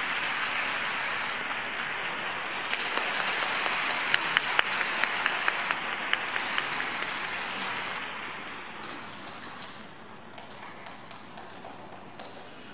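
Audience applauding, with a run of sharp, louder claps close by between about three and six seconds in; the applause dies down after about eight seconds.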